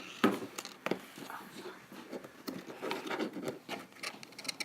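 Hands handling plastic zip ties and ball bearings: a handful of sharp clicks with rubbing and rustling between them.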